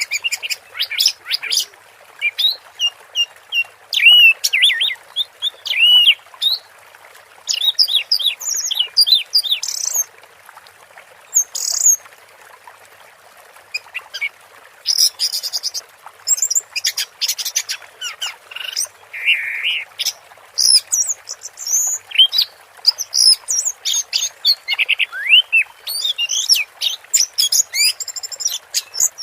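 Orange-headed thrush (anis merah) singing a long run of quick, varied, high whistled and twittering phrases, broken only by brief pauses, over a steady hiss.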